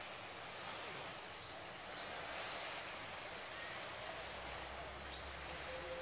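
Faint, steady seaside ambience: an even hiss of distant gentle surf and open air, with a few faint high chirps in the first half.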